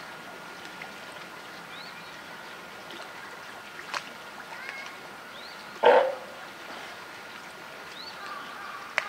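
A California sea lion gives one short, loud call about six seconds in. A few faint high chirps and two sharp clicks, near four seconds and near the end, sit over a steady background hiss.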